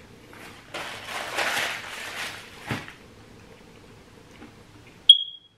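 Brown paper towel being handled and crinkled for about two seconds, ending in a knock. About five seconds in comes a short, sharp, high ping.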